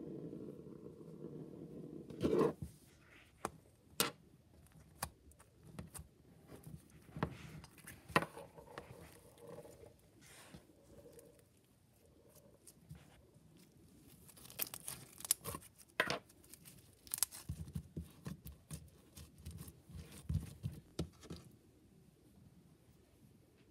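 Green slime with small beads mixed in being handled: stretched and pulled apart with sticky tearing, crackling and popping clicks. A steady low noise stops about two seconds in with a loud click.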